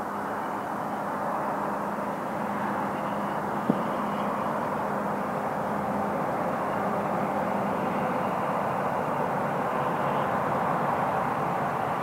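Distant BNSF freight train approaching, a steady rumble and rush from its diesel locomotives that slowly grows louder. A single sharp click about four seconds in.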